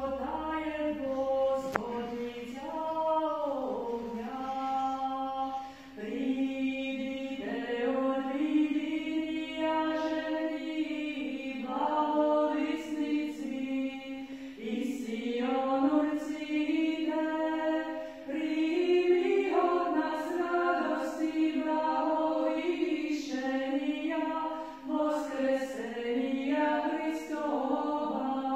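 A small group of voices chanting a hymn a cappella in Byzantine-rite church style, sung in sustained phrases with short pauses between them.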